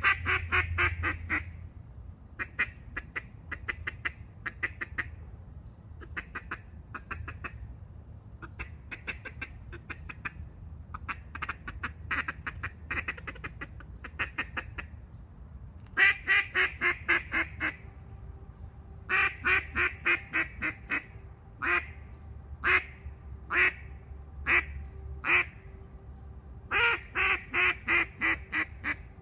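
Black River Black Monster duck call blown by mouth, giving strings of rapid quacks. The runs are softer in the first half, grow louder about halfway through, break into single loud quacks about a second apart, then end in another fast string.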